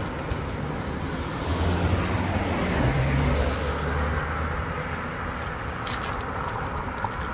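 A car overtaking on the road: its engine and tyre rumble swell about a second and a half in and fade after about four seconds. Underneath is a steady rush of wind and road noise on the microphone of a moving bicycle.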